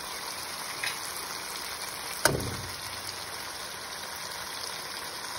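Tomato-and-onion masala sizzling steadily in a frying pan as eggs are cracked into it, with one sharp knock a little over two seconds in from an egg being cracked against the pan.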